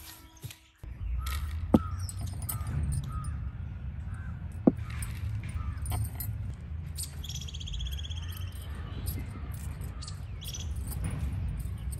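Birds calling and chirping over a low steady rumble, with a higher trilling call a little past halfway. Two sharp taps stand out in the first half.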